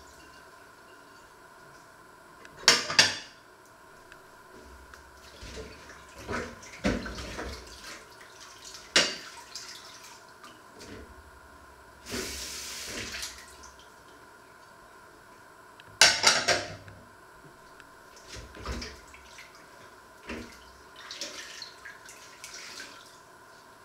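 Dishes being washed by hand in a stainless-steel sink: china plates and bowls clinking and knocking against each other and the sink, with sharp clatters twice. The tap runs briefly about halfway through.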